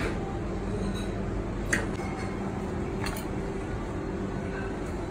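A fork clicking lightly against a plate twice, about two and three seconds in, over a steady low hum of kitchen equipment.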